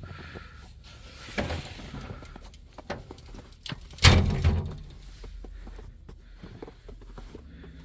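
A heavy thud about four seconds in that dies away over about half a second. A lighter knock comes earlier, and scattered small clicks and handling noise sit over a low rumble.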